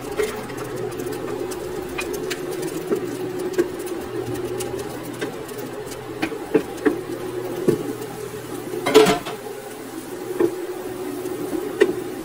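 Chopped onions tipped into a nonstick frying pan and stirred with a wooden spoon: scattered light knocks and scrapes of the spoon and onion pieces against the pan, with a louder clatter about nine seconds in, over a steady hum.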